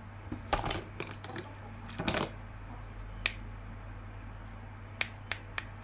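Scattered sharp clicks and short rustles of hands handling a plastic action figure and its packaging, in a quick cluster, then once, then four more near the end, over a steady low electrical hum.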